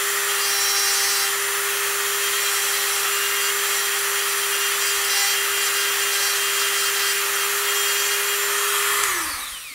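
Dremel rotary tool with a fine pointed bit running steadily, its tip grinding through the paint and outer layer of a painted artificial bird head. About nine seconds in it is switched off and its whine drops in pitch as it spins down.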